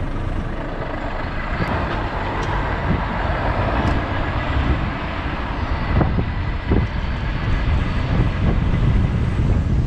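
Truck on the move: steady engine and road rumble, with a few faint knocks and clicks.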